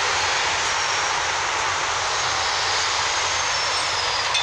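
Steady, loud rushing noise with no rhythm or clear pitch.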